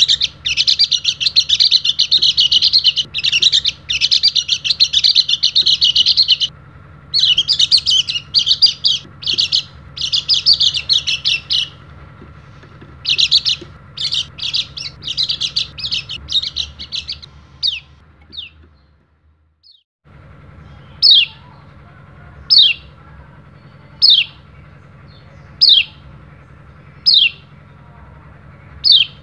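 A white-eye (pleci) singing a long, rapid, high twittering song that breaks into shorter phrases, then, after a brief dropout, giving single falling call notes about every second and a half.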